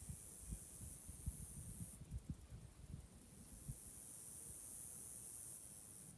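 Spring forest ambience: a high, steady hiss that drops back about two seconds in and swells again later, over irregular low rumbling thumps.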